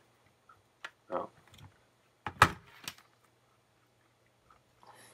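A few clicks and knocks as a brush-plating electrode handle and a metal crocodile clip are handled and set down in a plastic tray, the sharpest knock about two and a half seconds in.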